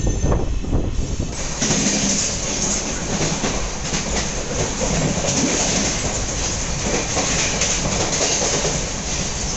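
Indian Railways express passenger coach running along the track: a steady rumble and rush of the moving train. The rushing noise rises suddenly about a second and a half in and then holds steady.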